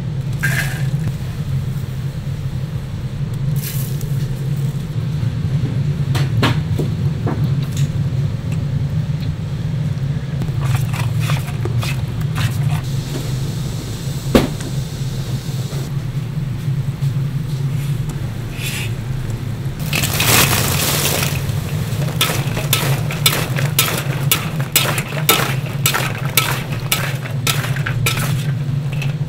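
A metal spatula knocking and scraping in a large cast-iron cauldron as dakgangjeong sauce is cooked and fried boneless chicken is tossed in it, over a steady low hum. A few scattered knocks at first, a short rush of noise a little over two-thirds through, then quick repeated scrapes and clinks toward the end.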